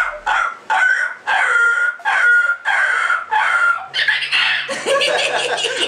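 Chicken calls: a loud run of about seven short, evenly pitched clucks, then a longer, harsher call from about four seconds in.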